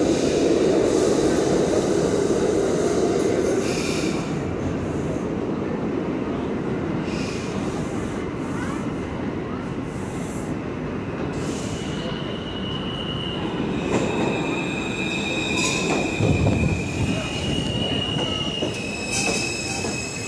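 New York City subway F train pulling into a station, rumbling as it comes in, then squealing steadily as it brakes to a stop, with a few sharp clanks about two-thirds of the way through.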